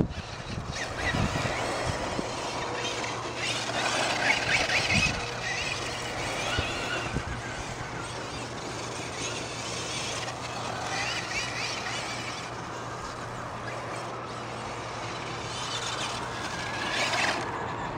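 Electric Traxxas Slayer Pro RC truck driving on grass, its motor whining and wavering in pitch as it speeds up and slows, over a steady hiss.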